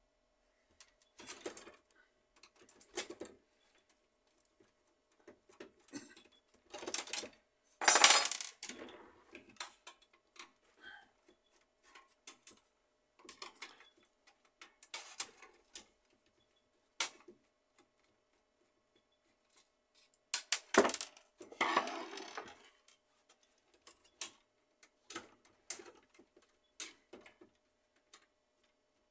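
Small screws and metal parts of a disassembled HP LaserJet 1300 printer being handled: scattered clicks, clinks and scrapes, with louder clattering about seven seconds in and again around twenty seconds in.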